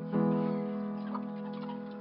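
Soft piano music: a single sustained chord struck just after the start, ringing and slowly fading.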